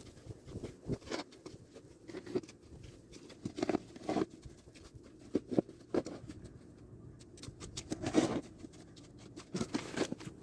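Snow shovel working through heavy, wet snow over a layer of slush, making irregular soft crunches and scrapes, with a few louder ones.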